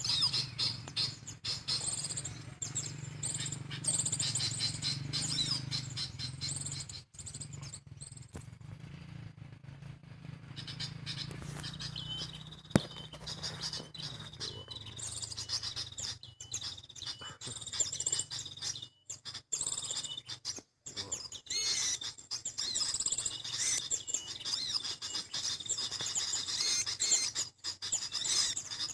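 Small birds chirping and twittering in rapid, high calls, with short repeated high notes in the middle part. A low hum runs underneath for the first third or so.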